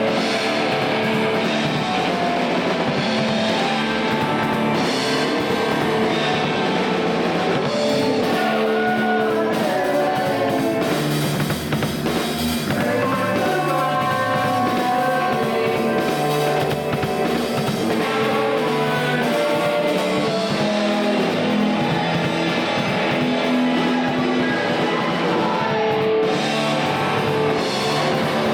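A rock band playing a loud, steady song with electric guitar and drum kit, mixing punk, metal and alternative styles.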